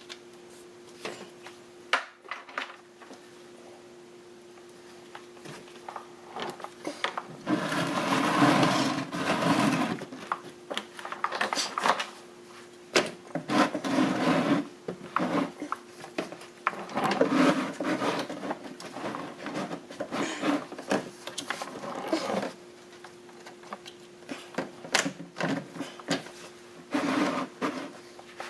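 Metal hand tools clicking and clinking in repeated bursts while working under a car during an oil change, over a faint steady hum.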